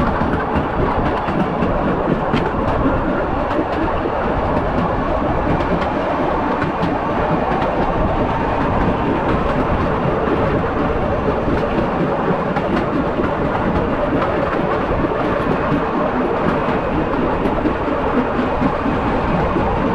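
Steady rumbling and rattling of a moving vehicle.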